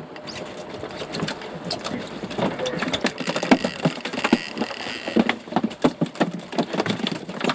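A freshly landed dorado (mahi-mahi) thrashing and slapping against the boat's deck and cooler, a rapid, irregular run of knocks and slaps that grows busier and louder after the first couple of seconds.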